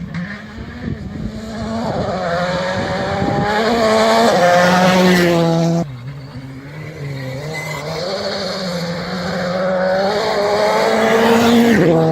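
Turbocharged rally car engine at full throttle approaching, its note climbing and getting louder until it stops abruptly about six seconds in; a second rally car then does the same, building to its loudest near the end.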